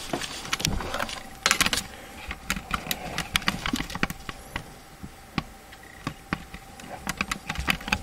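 Camera handling noise as the camera is moved and zoomed in: irregular clicks and light rattles, the densest cluster about a second and a half in, over a faint steady whine.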